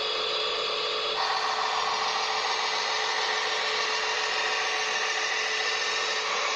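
Small electric motor and plastic gearbox of a toy RC construction machine whirring steadily, getting louder and fuller about a second in.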